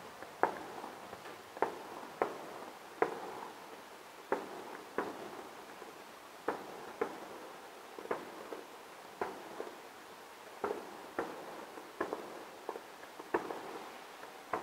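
Fireworks shells bursting in a steady, irregular barrage of sharp bangs, roughly one to two a second, each followed by a short echo.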